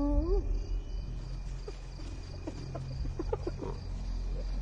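Spotted hyena's whoop, the long-range call that can carry up to 5 km, rising in pitch and ending about half a second in. From about a second and a half on come several short rising calls, over steady insect chirring.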